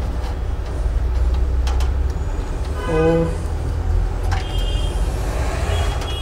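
Small plastic-and-metal clicks of BNC camera connectors being pushed and twisted onto the back of a DVR, over a steady low rumble. A short hummed voice sound comes about three seconds in.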